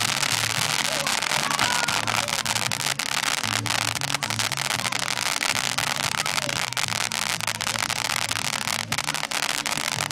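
A ground firework fountain spraying with a steady hiss and dense, continuous crackling pops. Faint low background music or murmur sits underneath.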